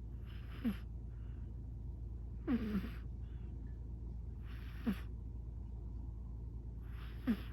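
A sleeping British Shorthair cat snoring, four short snores about two and a half seconds apart, each falling in pitch, with faint breaths in between.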